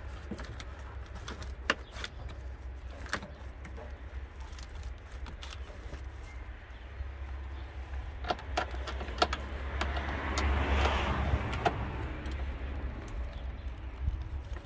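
Scattered light clicks and rattles of plastic wiring connectors and harness being handled by gloved hands, over a low steady rumble that swells and fades about ten to twelve seconds in.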